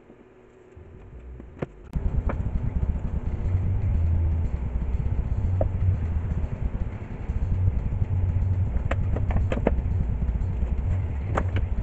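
A steady low rumble, like a motor running, that comes in loudly about two seconds in after a short quieter stretch, with a few sharp taps and knocks over it.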